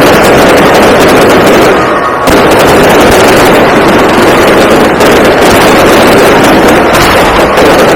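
A dense, loud barrage of aerial fireworks: many bursts and crackles running together without a break, with a short dip about two seconds in.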